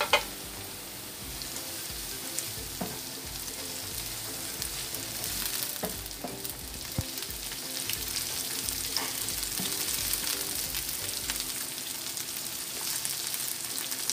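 Sliced onions and red bell pepper strips sizzling in oil in a frying pan, stirred with a wooden spatula that now and then clicks and scrapes against the pan. A sharp knock comes at the very start.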